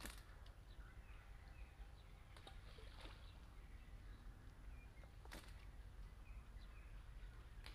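Near silence: faint outdoor ambience with a steady low wind rumble, scattered faint bird chirps and three faint sharp clicks.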